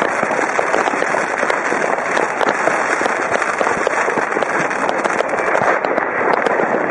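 Many fireworks and firecrackers going off at once: a dense, continuous crackle of small overlapping bangs and pops with no pause.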